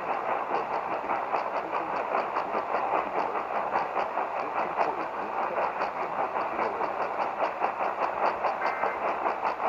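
Radio receiver noise: a steady static hiss with a fast rhythmic pulsing, about four or five beats a second, where no program audio comes through.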